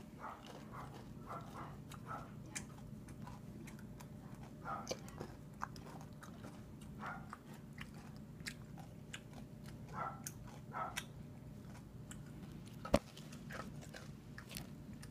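A person chewing and crunching candy-shelled M&Ms, with small irregular crunches over a steady low hum. A single sharp knock about thirteen seconds in is the loudest sound.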